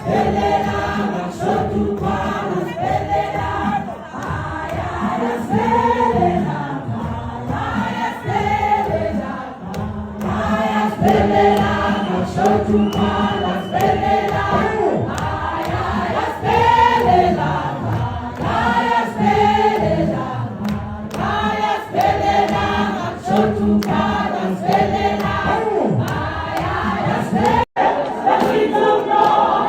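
A choir of many voices singing a hymn with a steady low note underneath. The sound drops out for an instant near the end.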